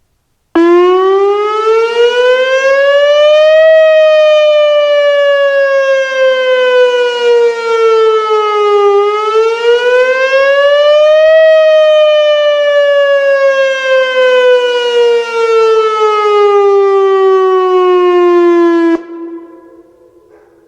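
Whelen WPS-2909 electronic tornado warning siren sounding two wail cycles in a test: each time the tone rises over about three seconds, then falls slowly for several seconds. It cuts off sharply near the end, leaving a short fading echo.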